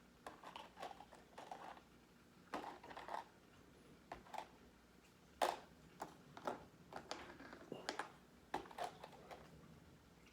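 Small clicks, taps and brief rustling scrapes of gun-cleaning tools and parts being handled on a table, irregular, with one sharper click about halfway through.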